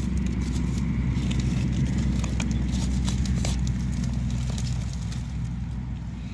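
Dry leaf litter crackling and rustling as a metal bar and a hand push through it, with scattered small clicks over a steady low rumble.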